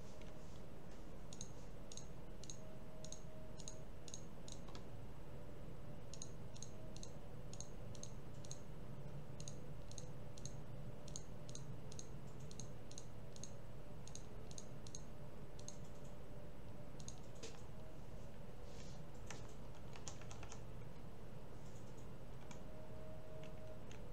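Computer mouse clicking in quick even runs, about three clicks a second, then a few scattered clicks later on, over a steady low hum.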